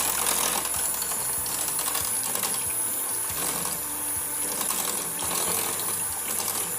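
Electric hand mixer running steadily, its beaters whisking egg yolk, olive oil and lemon juice into a homemade mayonnaise dressing.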